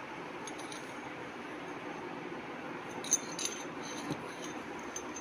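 Quiet room with a steady background hiss, broken by a few faint short clicks and rustles about three seconds in.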